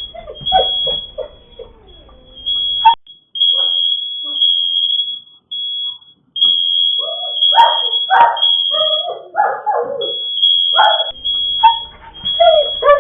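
Kidde smoke alarm sounding a high, piercing beep over and over, a false alarm that the owner puts down to a faulty detector. A dog barks and yelps over it, loudest in the middle.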